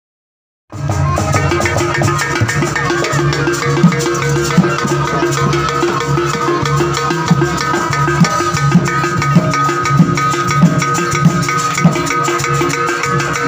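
Jaranan gamelan music: drum strokes and rattling percussion over a long held high tone. It cuts in suddenly about a second in.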